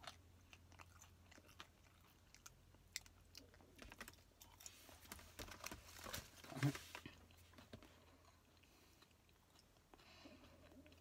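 A person chewing food close to the microphone, faint wet mouth clicks and crunching over the first several seconds, with one louder bump a little past halfway, then quieter chewing toward the end.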